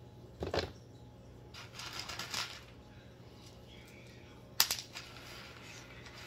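Handling noises at a table: short spells of crinkly rustling, and one sharp click a little past four and a half seconds in, the loudest sound.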